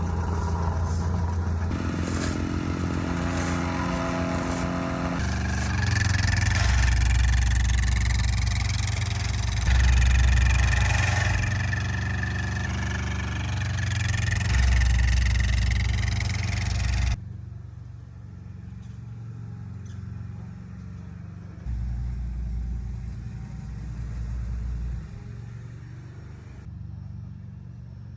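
Heavy paving machinery engines running and working, heard in several short clips that change abruptly, with the sound dropping to a quieter engine hum about two-thirds of the way through.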